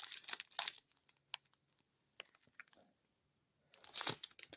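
Wrapper of a Panini Contenders Football trading card pack crinkling and tearing as it is opened. It comes in two short bursts, one in the first second and another near the end, with a few light clicks between.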